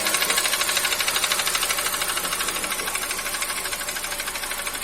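Kia Cerato engine running with a fast, even metallic knocking clatter, which the mechanic takes for piston slap from worn pistons.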